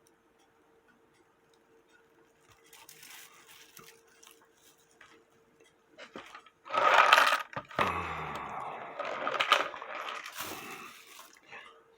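Small metal parts and tools clicking, clinking and scraping while the pin that holds the hour pipe is fitted on a cuckoo clock movement's motion works. It is quiet at first, then a busy run of clicks and scrapes comes from about seven seconds in.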